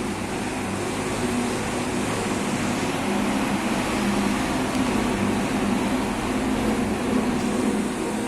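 Homemade CNC laser engraver at work: a steady fan hiss, with the stepper motors humming in low tones that change pitch every second or so as the head moves.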